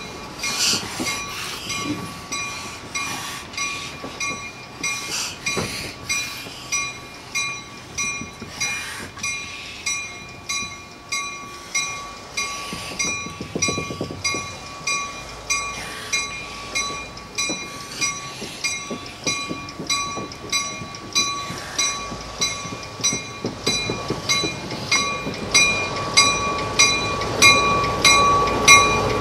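Locomotive bell ringing steadily, a little faster than one stroke a second, each stroke ringing on, as locomotives move slowly along the track. Over the last few seconds a diesel locomotive engine grows louder as it comes past.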